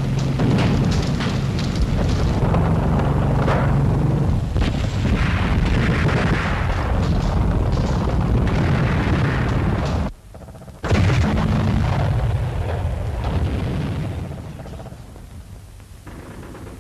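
Battle sound effects: rapid gunfire and explosions. They break off for under a second about ten seconds in, come back with a loud blast, and die away over the last few seconds.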